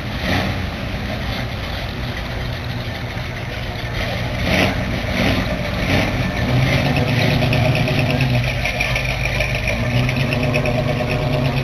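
Engines of classic cars running as the cars drive slowly past one after another. A steady low engine note grows stronger from about six seconds in.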